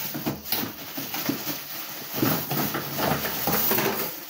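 Plastic bag around a brush-cutter engine rustling and crinkling as it is handled and pulled out of its box.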